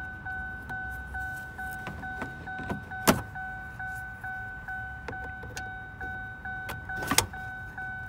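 2008 Chevrolet Equinox warning chime sounding in a steady repeating tone, about two and a half times a second, as it does with a door left open. Two sharp plastic snaps, about three seconds in and near the end, are the door panel's retaining clips popping loose.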